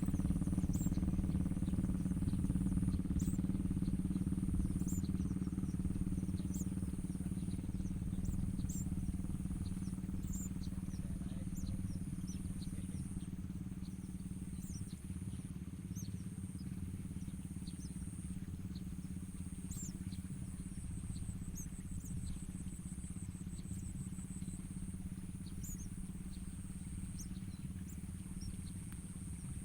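Steady low engine drone, slowly fading, with a high buzz that cuts in and out and scattered faint, short, high bird chirps.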